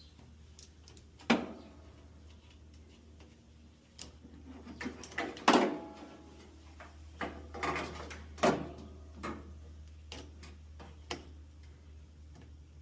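Scattered clicks and knocks of hard objects being moved, one sharp knock about a second in and a busier cluster in the middle, over a faint steady low hum.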